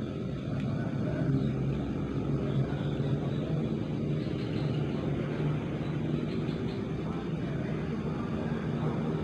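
A steady low mechanical hum, a motor running with an unchanging droning tone.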